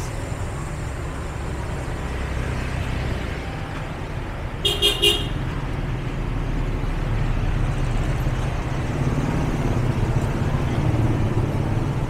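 Steady low rumble of road traffic, with a vehicle horn giving two quick beeps about five seconds in.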